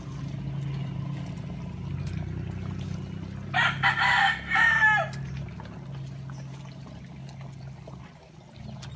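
A rooster crows once, loud and about a second and a half long, starting about three and a half seconds in, its call breaking into a few segments and ending in a falling, curling note. Underneath runs a steady low sound, from coconut milk simmering and bubbling in a wok.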